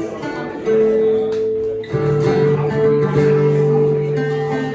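Rock band playing an instrumental passage of a song, guitar to the fore with held notes, the chord changing about two seconds in.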